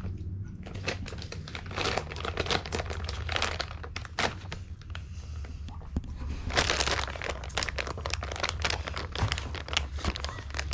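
Plastic bag of a cooked chicken crinkling and rustling as hands rummage in it, in many short irregular crackles.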